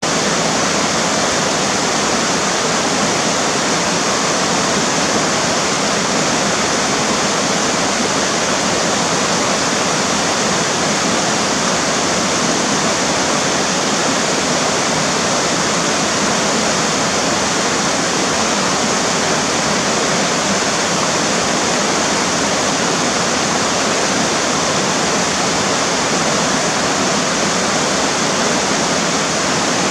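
River water rushing steadily over rocks, a loud, even roar of water with no change throughout.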